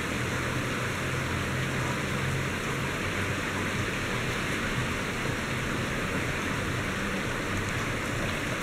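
Heavy rain falling steadily, a constant hiss of rain on wet pavement and the surrounding surfaces during a thunderstorm.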